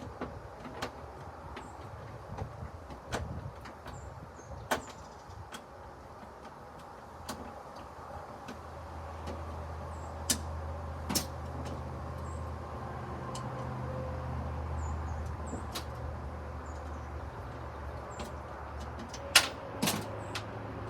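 Scattered light clicks and taps of a hand screwdriver working out small screws, with two sharper clicks near the end. A low engine hum swells in about eight seconds in and eases off later.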